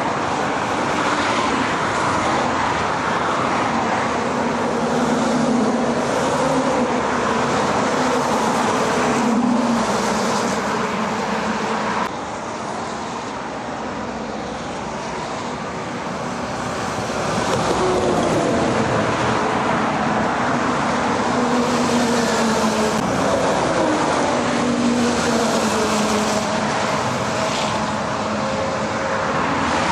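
Traffic on a wet dual carriageway: army trucks, lorries and cars passing in a steady stream, with tyre hiss and engine tones that drop in pitch as each heavy vehicle goes by.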